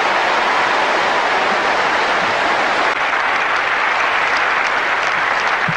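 A large stadium crowd applauding steadily, a dense even sound of many hands clapping that eases a little about three seconds in.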